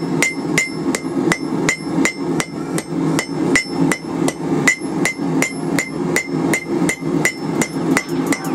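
Cross-peen hammer striking a red-hot steel wrench on the anvil horn in a steady rhythm of about three blows a second, each with a short ringing ping. The blacksmith is drawing out the wrench's middle to lengthen it.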